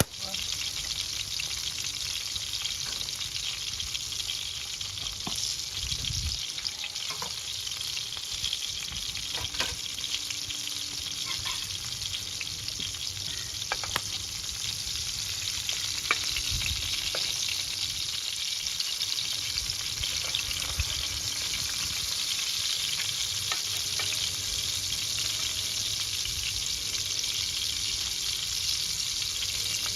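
Food sizzling over a wood fire: a steady hiss with scattered sharp pops and crackles.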